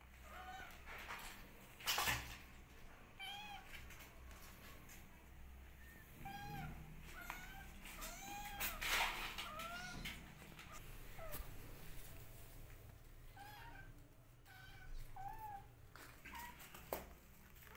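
Kittens mewing over and over: many short high calls, each rising and falling in pitch, with a couple of short knocks about two and nine seconds in.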